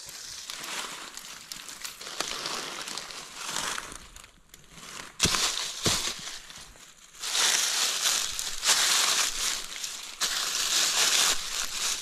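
Dry fallen leaves crunching and rustling in irregular spells on a leaf-covered forest floor, with a couple of sharper cracks a little past the middle and a louder stretch in the second half.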